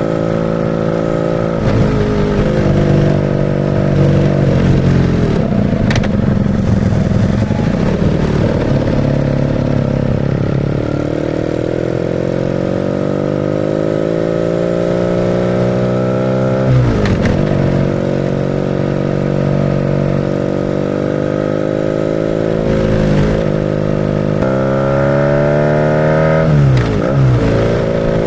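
BMW R nineT's 1170 cc boxer twin through a Pro Race GP S1 exhaust, running under way. Its pitch holds, then climbs slowly, and three times it dips sharply and comes back up, around 17 s, 23 s and near the end.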